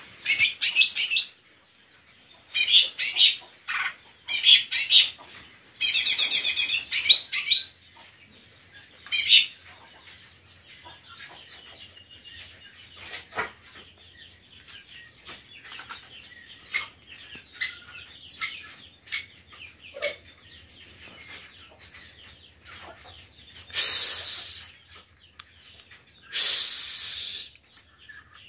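Birds calling in loud, high-pitched bursts through the first ten seconds, then scattered quieter chirps, with two longer noisy rushes near the end.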